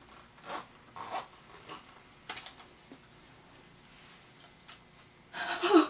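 A metal spoon clicking and scraping in a glass bowl: scattered small taps, several a second at times, with a louder, fuller sound near the end.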